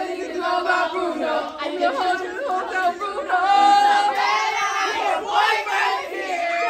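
A group of young voices singing together loudly, many voices overlapping, with one long held note about halfway through.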